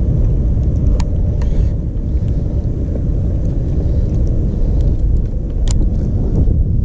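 Wind buffeting a camera microphone: a steady low rumble, with a couple of faint clicks.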